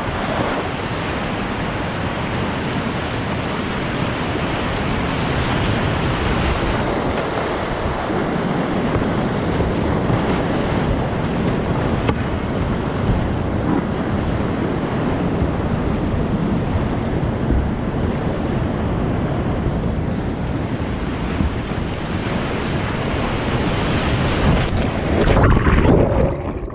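Whitewater rapids rushing around a kayak, heard close up through the boat's action camera with wind on the microphone. Near the end the sound turns louder and dull as the camera plunges underwater.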